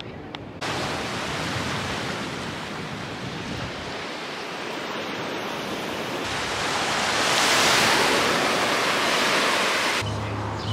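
Rushing noise of wind and surf on an open sandy beach, swelling to its loudest about eight seconds in. Near the end it cuts to a steady low hum.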